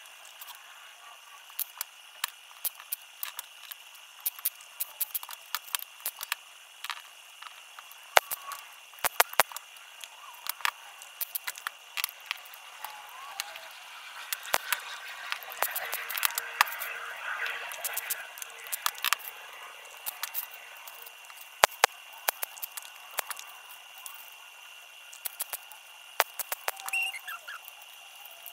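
Thin 24-gauge sheet-metal pieces clinking, tapping and scraping against a metal table as they are handled and fitted together, with many sharp irregular clicks and a steady high whine underneath.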